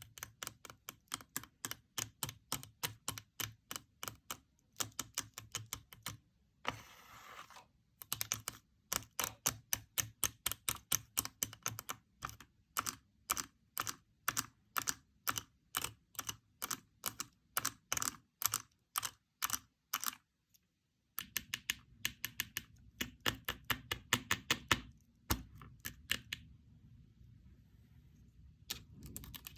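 Fingers pressing and tapping a handmade paper fidget board: a quick, keyboard-like run of crisp clicks, about three to four a second. A short rustle comes around seven seconds in, the clicks break off briefly a little after twenty seconds, and near the end they give way to a softer scratching.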